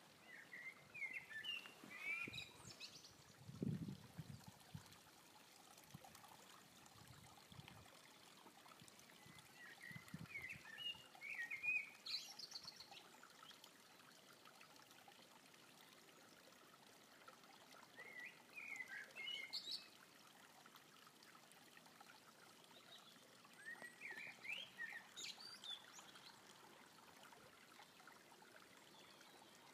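Eurasian blackbird singing four separate phrases, each a run of fluty whistled notes that ends in higher, thinner twittering, with pauses of several seconds between them. Under the song is the faint steady trickle of a small creek, and there is a brief low rumble about four seconds in.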